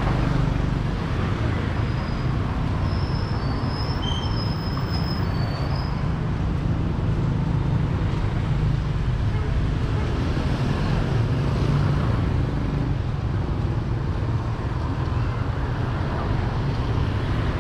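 Street traffic noise: a steady wash of passing vehicles and engines.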